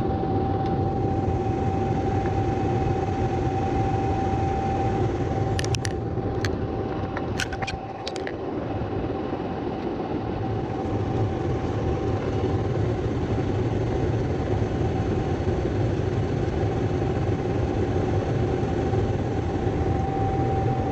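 A motor running steadily with a constant whine over a low hum, with a few sharp clicks about six to eight seconds in.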